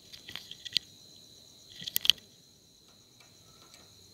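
Two quick clusters of sharp little clicks and taps, the louder about two seconds in, as metal multimeter probe tips are set against the contacts of a power-amplifier board. Crickets trill steadily and high in the background.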